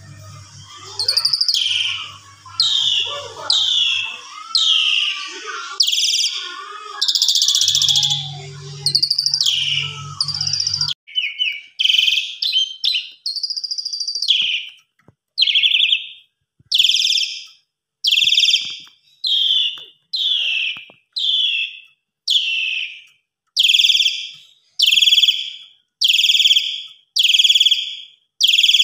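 Javan pied starling (jalak suren) singing: a varied run of chattering calls over a low hum. After about eleven seconds this gives way to an even series of short, loud repeated calls, a little more than one a second.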